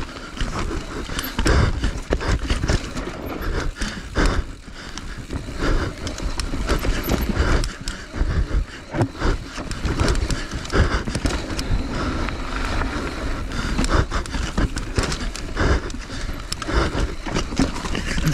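Enduro motorcycle on a rough section: the engine revs unevenly amid repeated knocks and clatter.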